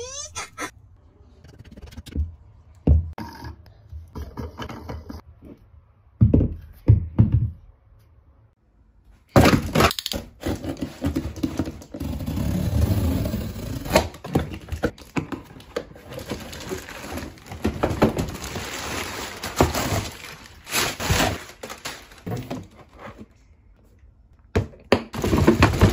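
Unboxing sounds: cardboard boxes and plastic dumbbell parts knocking and thudding on a wooden floor. About nine seconds in, a box cutter slices packing tape on a cardboard carton, followed by a long stretch of cardboard flaps and packing material rustling and scraping, with more knocks near the end.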